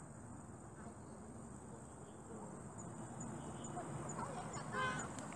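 Insects in the roadside vegetation keep up a steady high-pitched drone, joined about halfway through by a short chirp repeating about twice a second. A brief call is heard near the end.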